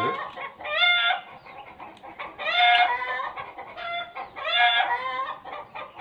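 Chickens calling: a string of loud, drawn-out calls every second or two.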